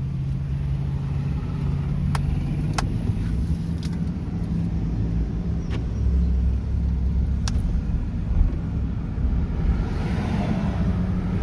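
Car driving along: steady low engine and road rumble, with a few sharp clicks.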